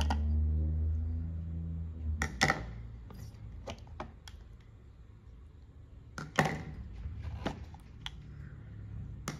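Plastic lids being taken off ceramic natto pots and set down, making a few sharp clicks and knocks. A low hum is loudest at the start and fades out about two seconds in.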